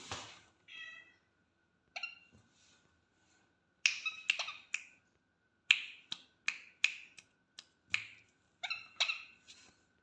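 Young Indian ringneck parakeet giving short, harsh chattering calls in quick clusters, each starting with a sharp click-like attack.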